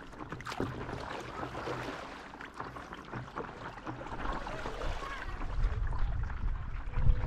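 Water trickling and lapping against an inflatable stand-up paddleboard as it is paddled, with small splashes from the paddle strokes. A low rumble of wind on the microphone builds over the last couple of seconds.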